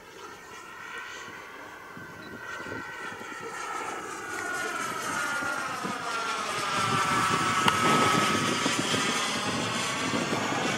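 Kingtech K80F model jet turbine running in flight with a steady high-pitched whine, growing louder over the first several seconds as the radio-controlled model jet comes closer.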